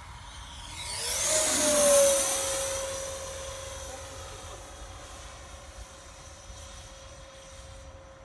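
Electric ducted-fan (impeller) whine of a Sebart Mini MB-339 model jet taking off. It rises as the jet approaches, is loudest about two seconds in as it passes with a slight drop in pitch, and then fades steadily as the jet climbs away.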